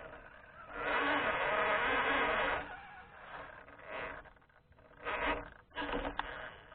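HPI Venture Toyota FJ Cruiser RC crawler's electric motor and gears whining in bursts as it is driven, heard close up from the truck's own onboard camera: one burst of about two seconds, then a few short ones near the end.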